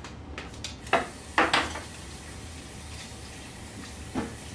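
A few short knocks and clatters of kitchen items being handled on a counter: one about a second in, a quick pair just after, and one more near the end, over a low steady hum.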